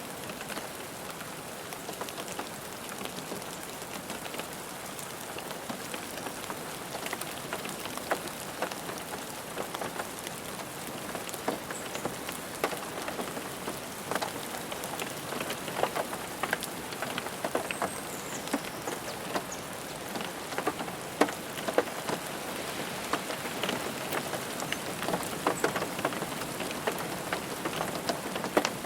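Rain falling on a car roof: a steady patter with many sharp individual drop ticks, growing denser and a little heavier in the second half.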